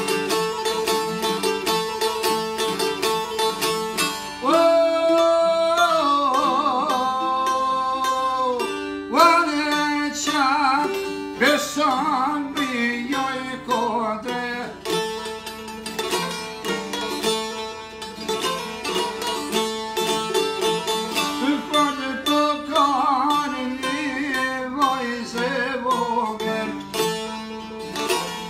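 Albanian long-necked lutes (çifteli) plucked in a steady, busy pattern, with a man singing in long held, wavering notes. The singing enters about four seconds in, breaks off for a purely instrumental stretch midway, and returns near the end.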